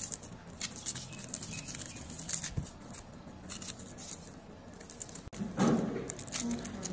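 Small knife scraping at a red onion's root end and papery onion skin crackling as it is peeled, a scatter of light clicks and rustles. A louder rustle comes just before the end as the outer skin is torn off by hand.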